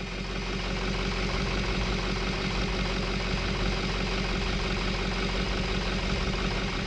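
Ford 6.0L Power Stroke V8 turbo-diesel idling steadily with a fine, even pulse. The engine is being diagnosed for hard starting and rough running.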